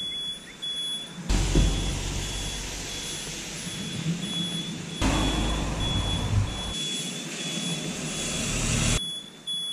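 Rain and wind noise rushing on an action camera's microphone at a wet roadside, with a high beep repeating steadily throughout. The noise changes abruptly in level several times where the shots are cut together.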